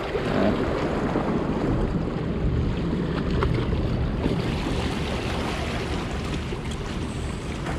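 Wind blowing on the microphone over harbour water lapping and splashing against breakwater rocks, a steady noise with no break.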